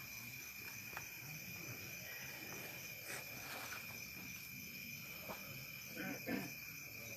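A steady, high-pitched chorus of insects shrilling without a break. A short murmur of low voices comes about six seconds in.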